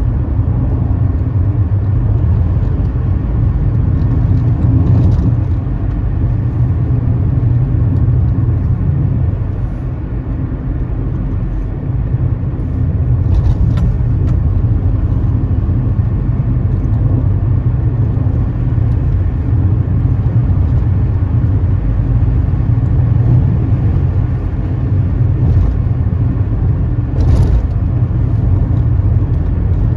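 Car driving along a country road: steady low engine and tyre rumble, with a few brief knocks from the road surface.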